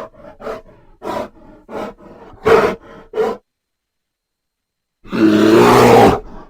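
A bear giving a run of short grunts, about three a second, then after a pause one loud roar lasting about a second and a half.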